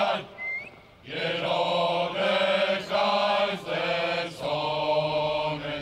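Male chorus of legionnaires singing a slow marching song in unison, in long held notes, with a short break about a second in.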